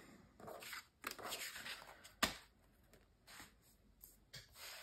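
Sheets of card and thin metal cutting dies being slid and shuffled across a self-healing cutting mat: soft papery swishes, with one sharp click a little past two seconds in.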